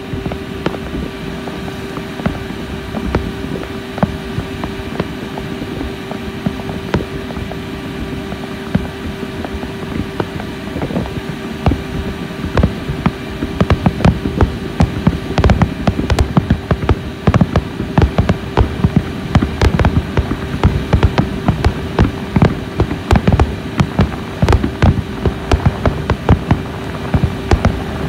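Fireworks shells bursting over the sea: scattered bangs at first, then a dense, loud barrage of bangs from about twelve seconds in. A steady boat-engine hum runs underneath.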